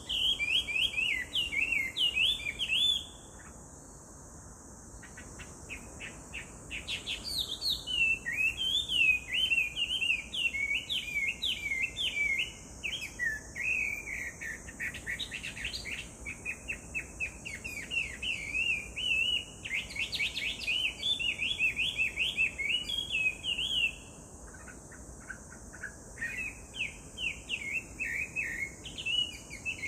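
Chinese hwamei singing: long, loud runs of rapid, varied whistled phrases that rise and fall, breaking off briefly a few seconds in and again about four-fifths of the way through.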